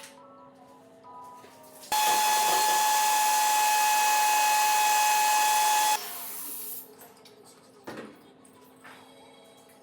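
A small electric appliance is switched on for about four seconds, making a steady whine over a loud hiss. It cuts off suddenly, and a fainter hiss fades out within a second.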